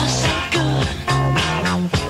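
Music: a 1970s pop song with a stepping bass line, guitar and singing.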